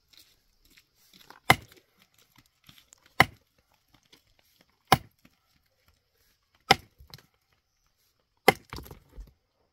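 Heavy hand tool striking rock in five hard blows, about one every second and three-quarters, with smaller clatters of broken stone after the last few.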